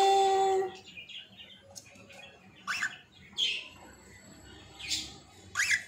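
A drawn-out human voice ends within the first second. Then a cockatiel gives four short, high calls, spaced out over the rest of the time.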